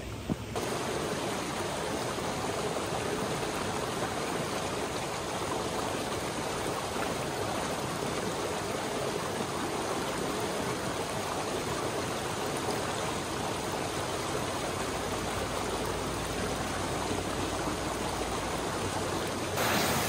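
Creek water running and rushing over rocks, a steady even sound, slightly louder near the end.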